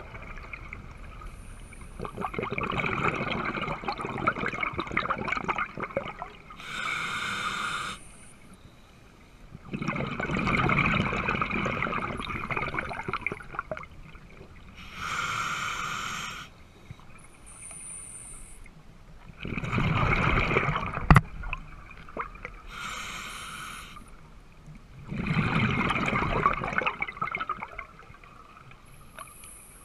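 Scuba diver breathing through a regulator, heard underwater: slow, even breath cycles about every eight seconds, each a short inhale through the regulator followed by a longer rush of exhaled bubbles. A single sharp click comes about two-thirds of the way through.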